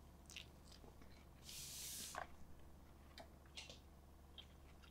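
Faint chewing of a bite of pizza, small soft crunches and clicks of the crust scattered through, with a short hiss about a second and a half in. A low steady hum sits underneath.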